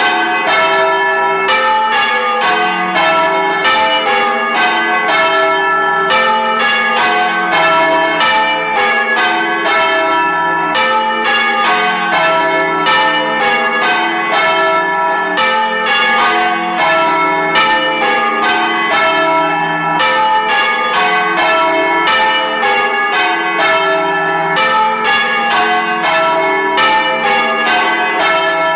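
Church bells change ringing: a steady, unbroken run of bell strikes, one after another, each note ringing on into the next.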